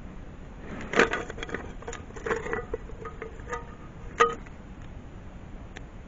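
A run of irregular knocks and clinks of hard objects, some leaving a short ringing tone. The loudest come about a second in and just after four seconds.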